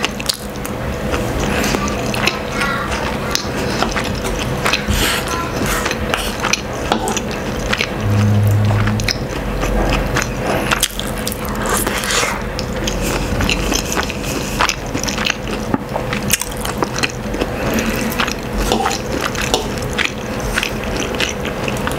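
Close-miked eating sounds: chewing and mouth smacks on rice, sardines in tomato sauce and fried egg, with many sharp clicks of a spoon and fork against a wooden board, over background music.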